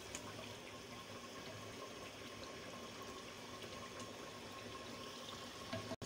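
Beef paya curry simmering in a clay pot: a faint steady hiss with small scattered pops of bubbles.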